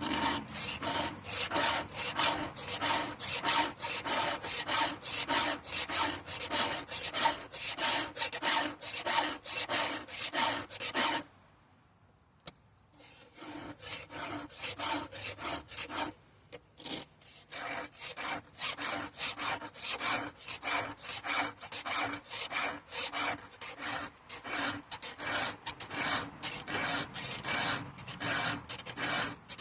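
Hand file rasping on a chainsaw chain's cutters in quick, even strokes, two or three a second, pausing twice, once for about two seconds. A steady high-pitched tone sounds behind the strokes throughout.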